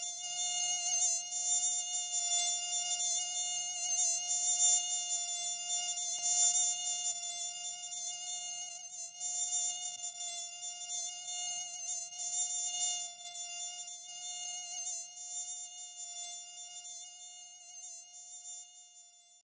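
Mosquito in flight, its wings making a steady high-pitched whine that wavers slightly in pitch and loudness. It grows fainter over the last few seconds and then stops.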